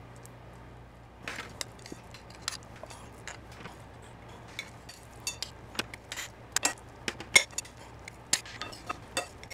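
A spoon clinking and scraping against a glass mixing bowl, and stuffed quahog shells clicking on a metal sheet pan, as stuffing is scooped into the shells. Irregular light taps start about a second in and run on, a few sharper clinks among them.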